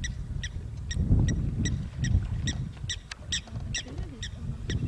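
Leopard lapping water in a steady rhythm, about two to three laps a second, each lap a short wet click, over a low rumble.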